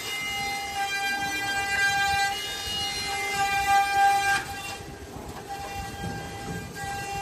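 CNC trimming machine's high-speed spindle whining steadily as its cutter trims the flange of a vacuum-formed hard plastic suitcase shell. The whine weakens for about a second some four and a half seconds in, then comes back.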